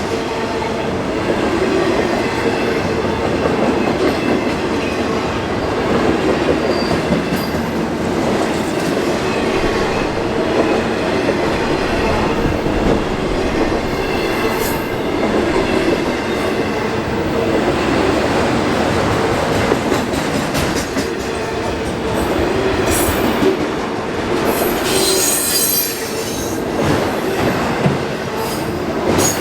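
Freight train cars rolling past on jointed track, wheels clacking steadily, with brief high-pitched wheel squeals about halfway through and again near the end.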